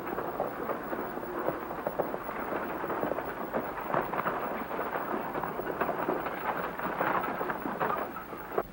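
Fast hoofbeats and rattling wheels of a horse-drawn buggy going at speed: a dense, loud clatter that drops away sharply near the end.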